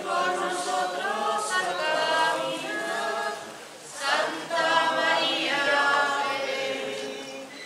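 Group of voices singing a hymn without accompaniment, in held sung phrases with a short break about four seconds in.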